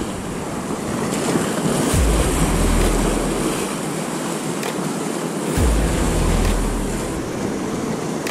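Sea surf breaking and washing white over shoreline rocks, steady and noisy, with two heavier low surges about two seconds and five and a half seconds in, and wind on the microphone.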